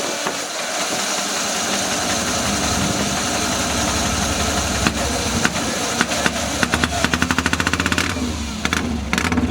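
HRD Vincent Black Lightning 998 cc V-twin being turned over to start, firing in a quick run of pulses for a couple of seconds, then dying away and firing again briefly near the end without catching.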